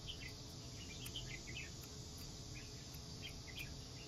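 Kitchen scissors snipping glass noodles over a bowl of beaten egg: a scatter of small, faint, irregular snips over a low steady hum.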